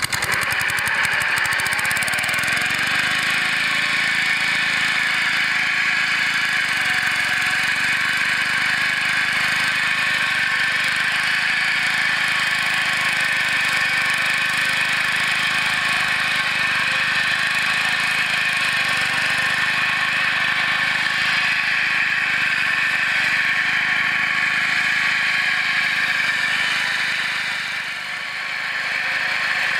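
Small gasoline engine of a Mott hammer knife flail mower running steadily. It comes in abruptly at the start and dips briefly in level near the end before picking back up.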